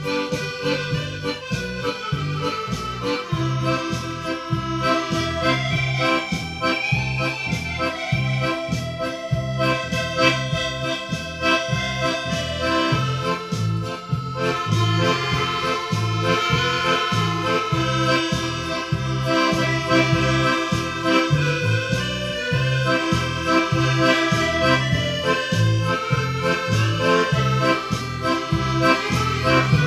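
Piano accordion playing a tune over a steady beat in the bass.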